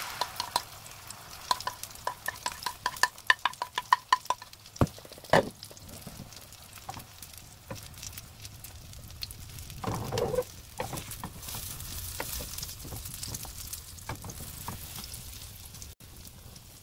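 Egg mixture sizzling in a hot nonstick frying pan while a wooden spoon taps and scrapes against the pan, pushing and folding a rolled omelette. There is a quick run of taps in the first few seconds, and then an even sizzle.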